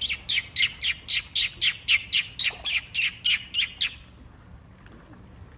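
A bird calling a rapid, even series of short, sharp, high notes, each dropping in pitch, about four a second, stopping about four seconds in.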